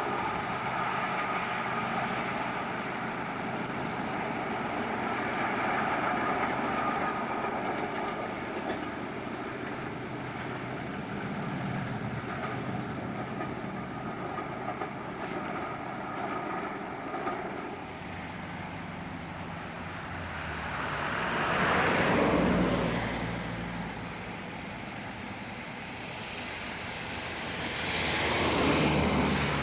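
Train running along the line: a steady rushing rumble that slowly fades as the train draws away. Later, two louder rushing swells each build and die away over a few seconds, one about two-thirds of the way through and one near the end.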